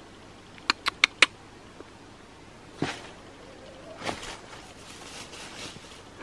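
Rustling and crunching in dry leaf litter: a single crunch near three seconds, then a longer stretch of rustling from about four seconds. It is preceded about a second in by four quick, sharp clicks.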